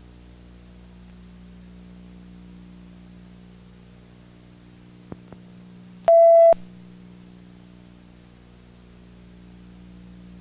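Steady low hum and hiss, with two faint clicks a little past halfway, then a single short, loud electronic beep lasting under half a second.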